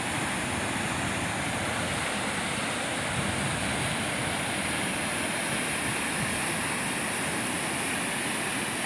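Fast-flowing floodwater of a river swollen by heavy rain, rushing steadily with no breaks.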